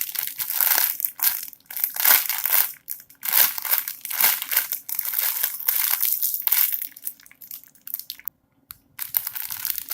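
A squishy toy being squeezed and handled close to the microphone, giving repeated crinkling, rustling bursts about once or twice a second, with a brief pause near the end.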